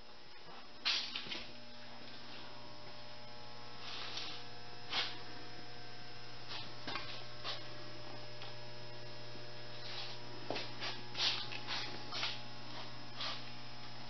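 Steady electrical mains hum, starting about a second in, with scattered clicks and knocks throughout.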